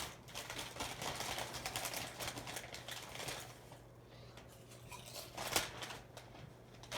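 Emerson KB55 ceiling fan motor running on low speed with a steady low hum. Over it come irregular crackling and clicking noises, heaviest in the first half, with a sharp click about five and a half seconds in.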